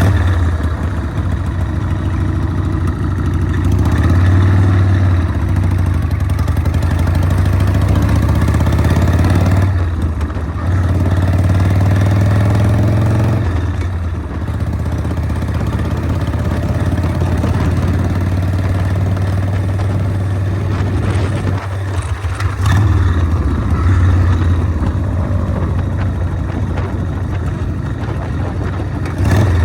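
Harley-Davidson Sportster chopper's V-twin engine running under way, pulling up through the revs and easing off, with short drops in throttle about ten seconds in, again a few seconds later and once more about two-thirds of the way through.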